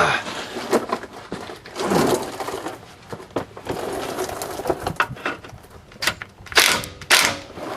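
Hand wrench working the 15 mm lower nut of a sway bar end link: irregular metallic clicks, taps and scrapes, with a longer rasping burst near the end. The end link's stud is spinning with the nut instead of the nut coming loose.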